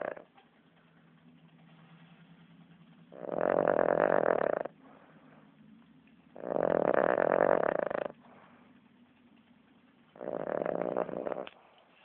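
Loud snoring: three long snores, each about a second and a half, coming roughly every three seconds with quieter breaths between. Each snore has a rattling texture.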